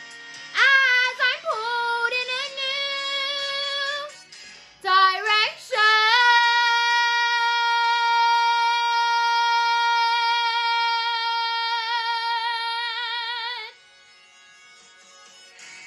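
A girl singing a musical-theatre song solo: a few short belted phrases, then a long high note with vibrato held for about seven seconds, which cuts off near the end.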